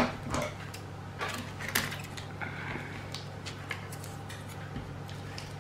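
Sticky tape being pulled from a roll and pressed onto a cardboard cut-out: scattered small clicks and taps of handling, with a short rasp of tape coming off the roll about two and a half seconds in.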